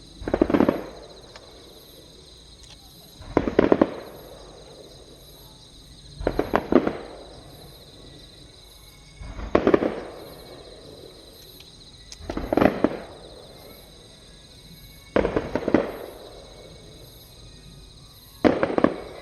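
Fireworks display: aerial shells going off in seven loud clusters of bangs and crackle, one about every three seconds, each echoing briefly after.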